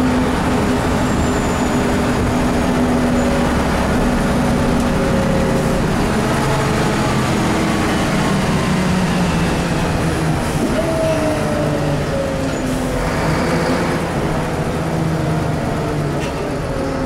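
Scania L94IB bus's rear-mounted 9-litre six-cylinder turbo diesel running under way, heard from inside the passenger cabin. Its note holds steady, then about ten seconds in a whining tone jumps up and slowly falls.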